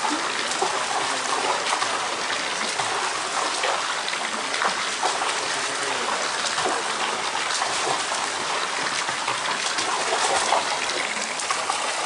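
Steady rush of spring water running into the concrete trout-farm ponds, a constant splashing flow.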